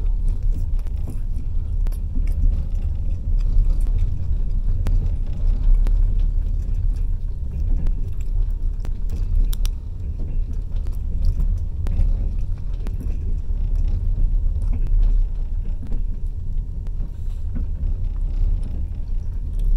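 Passenger train running, heard from on board: a steady low rumble of wheels on rails, with a few faint clicks and rattles.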